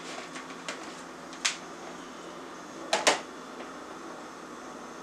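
A few light clicks and knocks, the loudest a quick double knock about three seconds in, over a steady room hum.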